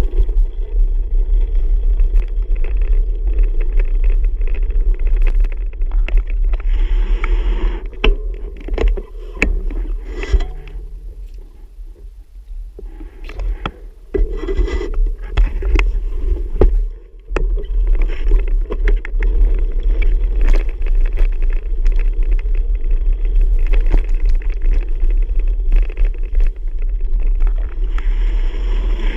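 Bicycle riding noise: a steady rumble with many small knocks and rattles over it, easing off for a couple of seconds near the middle.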